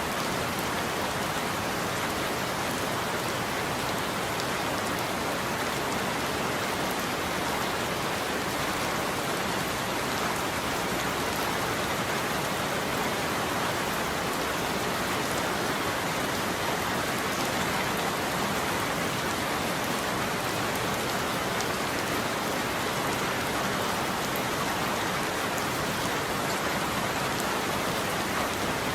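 Steady rain falling on a roof: an even, unbroken hiss of drops with no thunder.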